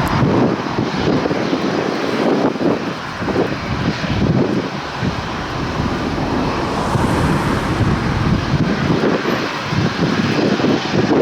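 Jet engines of a Boeing 737-600 airliner (CFM56-7B turbofans) running loudly as the aircraft moves past, a steady rush of noise with a fluttering low rumble.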